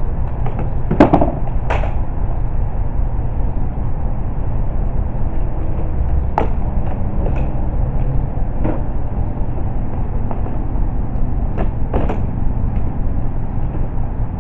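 Scattered clunks and clicks of a grass catcher bag being fitted onto the back of a walk-behind lawn mower, the rear flap lifted and the bag frame set in place, over a steady low rumble.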